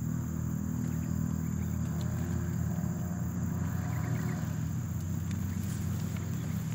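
A steady low engine drone that does not rise or fall, with a thin steady high-pitched tone above it.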